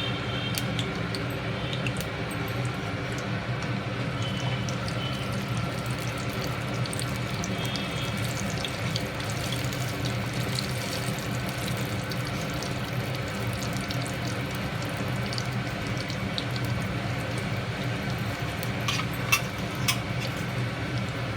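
Tempering spices (mustard seeds, cumin, chana dal and urad dal) frying in hot oil in a small pan: a steady sizzle with scattered crackles, and a few sharper pops near the end. A steady low hum runs underneath.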